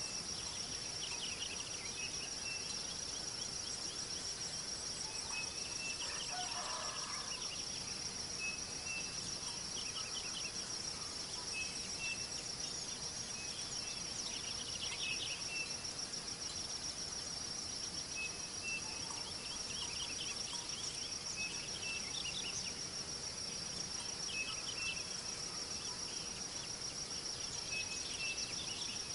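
Nature ambience: a steady high-pitched insect trill, like crickets, runs throughout, with short bird chirps every second or two and a lower bird call about six seconds in.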